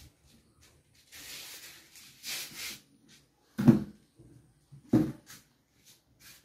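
Handling noise: rustling and brushing, then two loud dull knocks about a second and a half apart, with a few faint clicks around them.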